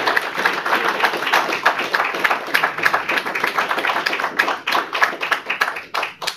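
Audience applauding with dense hand claps that thin out to a few scattered claps near the end, then cut off abruptly.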